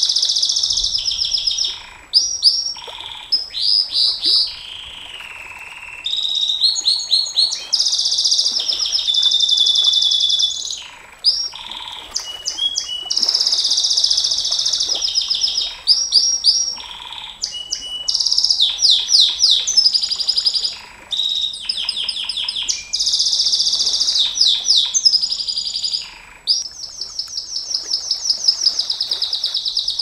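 A domestic canary singing long, rapid trills and rolls almost without pause, switching from one trilled phrase to the next every second or two. This is the long-burst 'nembak panjang' style of canary song.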